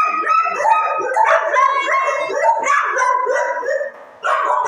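Many kennelled shelter dogs barking and howling at once, their calls overlapping without a break. There is a brief drop in the din about four seconds in.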